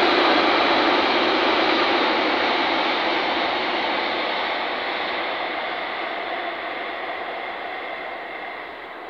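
Container freight train's wagons rolling on the rails, a steady rushing noise that fades gradually and grows duller as the train draws away.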